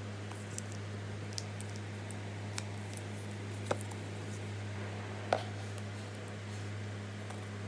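A MacBook Air being lifted out of its fitted box: a few short soft clicks and taps of the laptop and packaging being handled, the two clearest a little past the middle, over a steady low hum.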